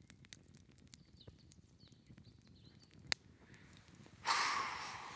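Faint high bird chirps and a single sharp click in a quiet outdoor background; about four seconds in, a sudden rush of breathy noise close to the microphone starts and fades slowly.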